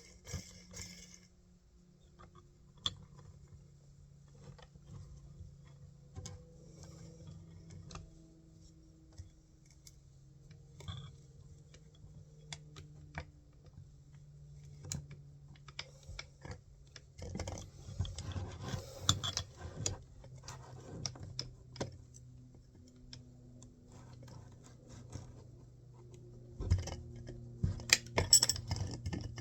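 Small tools and parts handled by hand: scattered light clicks, taps and rattles, busier in two stretches, over a steady low hum. The angle grinder is not running.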